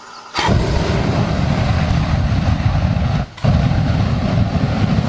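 Backpack flamethrower firing: a loud rushing blast of burning fuel starts about half a second in, cuts out briefly just past three seconds, then a second long blast follows.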